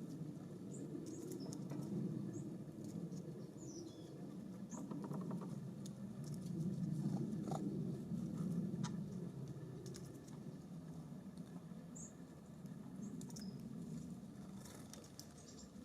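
Wind rumbling on the microphone, with small birds at a feeder: scattered pecking and scrabbling clicks, a brief run of quick taps about five seconds in, and a few short, high chirps.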